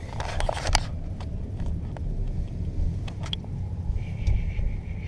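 Steady low road rumble inside a moving car, with a few light clicks about half a second in and a faint high tone near the end.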